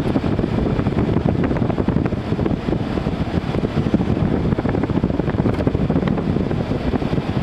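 General Electric 6000 BTU window air conditioner's blower fan running steadily, with the compressor not yet switched on.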